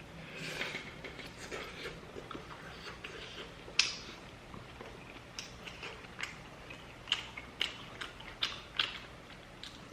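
Close-up chewing of crispy fried chicken (kkanpunggi): soft mouth noises at first, then a run of short sharp crunches in the second half.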